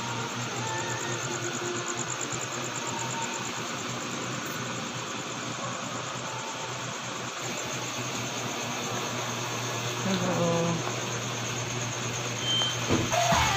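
A steady mechanical hum and hiss from a running motor, with a fast high pulsing over it. Faint voices come in briefly about ten seconds in.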